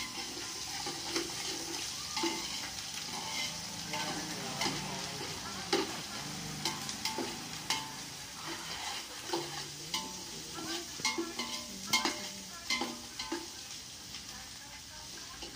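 Ginger and garlic sizzling as they fry in an aluminium pot, stirred with a long-handled metal spoon that scrapes and clinks against the pot. A steady hiss runs under frequent, irregular sharp clinks.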